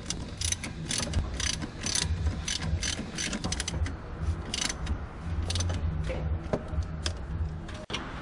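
Hand ratchet wrench clicking in repeated short runs, about two a second, as a bolt on the engine mount is turned.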